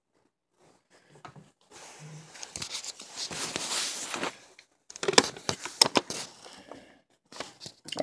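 Scratchy rustling and scraping with a run of small clicks and knocks: plastic vacuum parts and tools being handled.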